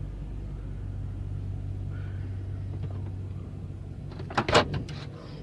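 Truck engine idling steadily with a low hum, freshly refilled with oil and being checked for leaks. About four and a half seconds in comes a brief clatter of knocks.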